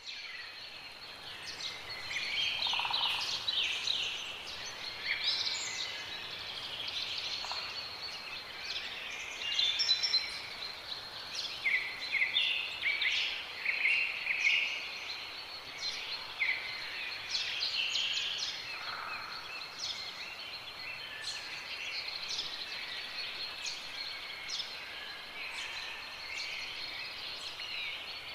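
Many small birds chirping and trilling over one another in dense, overlapping calls, with a steady high-pitched whine running underneath.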